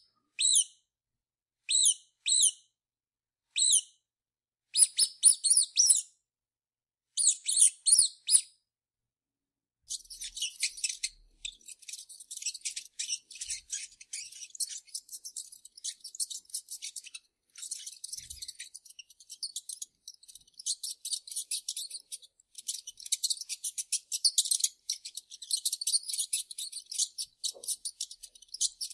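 Mouse squeaking: short clusters of high-pitched squeaks separated by pauses, then, after a brief silence, a long run of rapid, dense high squeaks and chittering.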